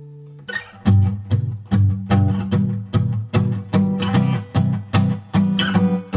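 Background music: the instrumental opening of a song. A chord fades out, then about half a second in a rhythmic part of short plucked string notes begins over low bass notes.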